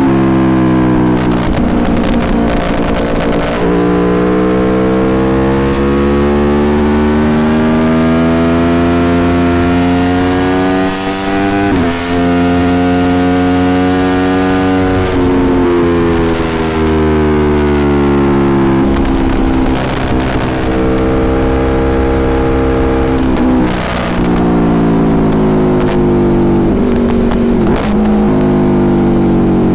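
Aprilia Tuono Factory motorcycle engine pulling hard through the gears. The pitch rises steadily and drops suddenly at each upshift, about twelve and about twenty-four seconds in, and eases off for a few seconds in between.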